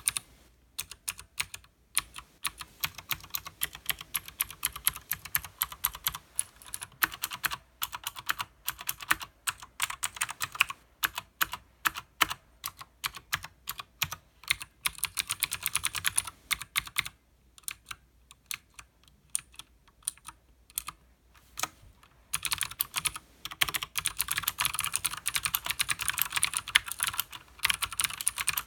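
Typing on a Leopold FC900R mechanical keyboard with Cherry MX Blue switches and PBT keycaps: fast runs of sharp keystroke clicks, slowing to a few scattered single keystrokes for a few seconds past the middle, then a long fast run again near the end.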